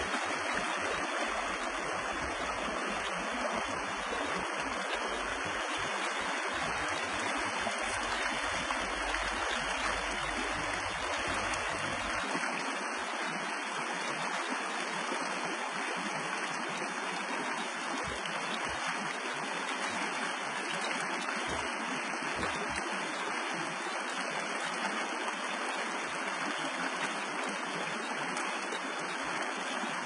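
Shallow rocky stream running, a steady even rush of water.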